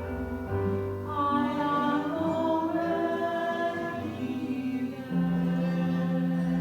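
Congregation singing a slow, repeated sung prayer in long held notes, the pitch changing about once a second.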